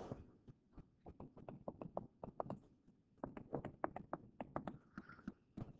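Faint, irregular taps and clicks of a stylus on a tablet screen during handwriting, many small ticks in quick succession.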